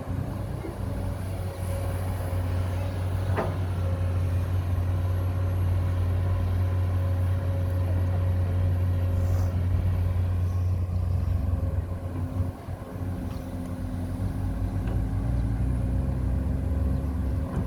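Engine of heavy earthmoving machinery running steadily with a low hum, dipping briefly about twelve seconds in.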